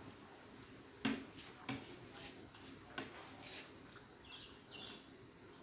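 Quiet eating sounds: a metal spoon scooping soft dahi vada from a ceramic plate and the eater chewing, with a few sharp clicks over a steady faint high hiss.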